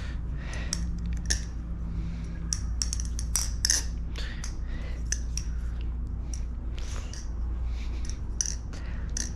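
Thomas Balisong Refault butterfly knife being flipped: irregular metallic clicks and clacks as the handles and blade swing open and shut and knock together. There is a steady low hum underneath.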